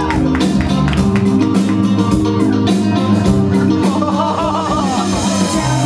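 Music playing, with guitar and a steady beat.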